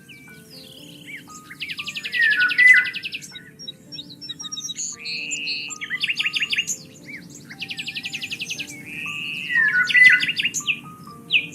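Several songbirds chirping and singing, with fast buzzy trills and short whistled notes recurring every few seconds, over soft background music with held notes.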